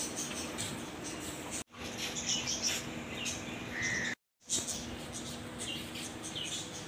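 Birds chirping, many short high chirps in quick succession. The sound cuts out to silence twice, briefly, about a second and a half in and again about four seconds in.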